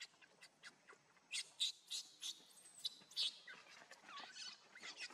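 Animal calls: a run of short, high-pitched chirps and squeaks, with a few sliding squeals partway through.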